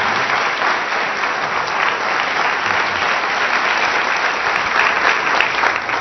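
A large audience applauding steadily, a dense patter of many hands clapping, starting to die away at the very end.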